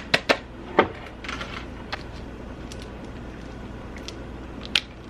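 Kitchen handling while chopped onions are added to a bowl of cut lettuce: several sharp clicks and taps in the first second, a soft rustle, then a steady low hum with one more sharp click near the end.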